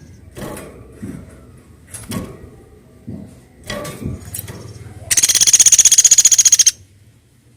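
Woodpecker calling: a few short, sharp notes, then a loud, fast, high-pitched rattle lasting about a second and a half that cuts off abruptly.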